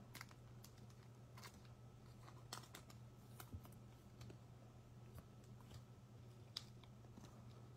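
Faint, irregular clicks and light snaps of baseball trading cards being handled and sorted, over a low steady hum.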